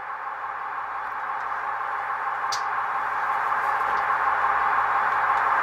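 Steady hissing whir from an HO-scale Roco Beilhack snow blower model as its rotate-body function starts, growing gradually louder, with one short tick about two and a half seconds in.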